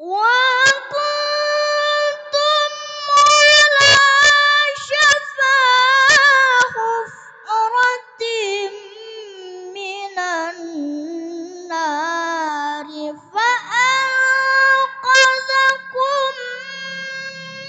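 A young boy reciting the Quran in the melodic tilawah style: long, high held phrases with ornamented turns, broken by short breath pauses. The pitch drops to a lower register around ten seconds in and climbs back high at about thirteen seconds.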